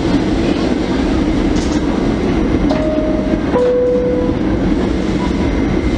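New York City subway car standing in the station with a steady low rumble, and a two-note falling door chime about three seconds in as the doors close.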